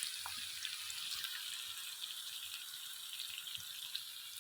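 Sliced onions frying lightly in hot oil in a pan: a steady sizzle with scattered small crackles.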